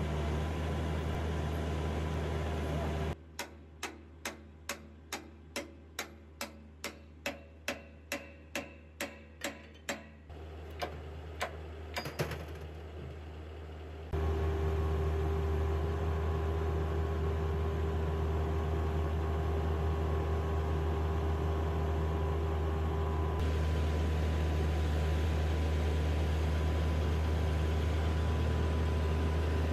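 Excavator's diesel engine running steadily, broken by a quieter stretch of evenly spaced clicks, about two and a half a second, then a few irregular knocks. The engine sound comes back louder about halfway through.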